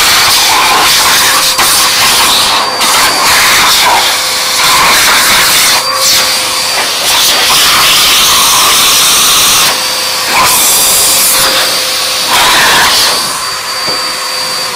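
Handheld hairdryer blowing hard, a loud rush of air over a steady motor whine, aimed into a Newfoundland puppy's mouth so his loose lips flap in the airflow. The level surges and dips every second or two as the air stream moves across the mouth and the microphone.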